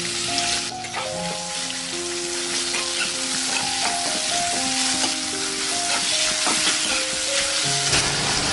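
Chopped onions sizzling in hot oil in an aluminium kadhai, stirred with a steel spatula that clicks and scrapes against the pan. Background music plays a melody throughout.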